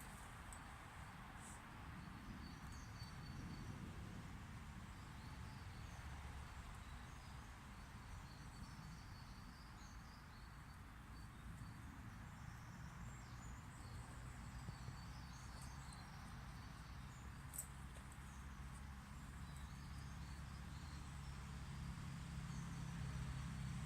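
Faint background noise: a low steady hum that grows a little louder in the second half, with scattered short, high chirps and an occasional click.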